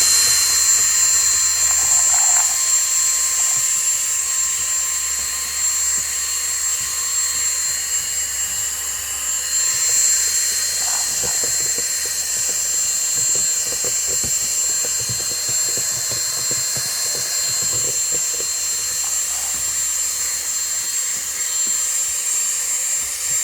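Small handheld vacuum cleaner running steadily with a high motor whine and airflow hiss, picking up debris, with a few light knocks as it works.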